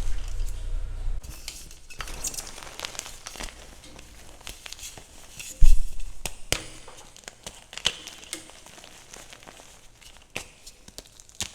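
Chalk being crumbled and crushed for ASMR: irregular crinkling and crackling with scattered sharp snaps, and one loud low thump a little past halfway. A low steady hum stops about a second in.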